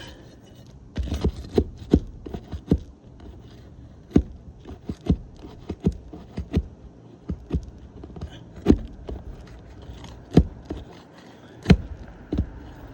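A steel crowbar prying at roofing nails in asphalt shingles: irregular sharp metal clicks and knocks with scraping in between. The bar is failing to get under the nails, which are pulling through the shingle.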